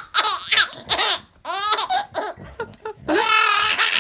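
Baby laughing in a string of short, high-pitched bursts, then one longer squeal about three seconds in.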